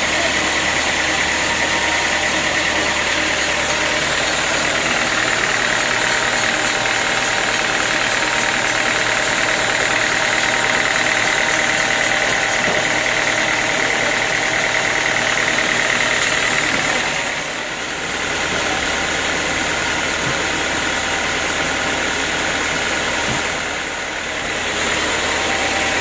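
Band sawmill running, its blade cutting through hard acacia wood with a steady high whine over the constant drone of the mill's drive. The whine fades and the level dips briefly about seventeen seconds in, and again near the end.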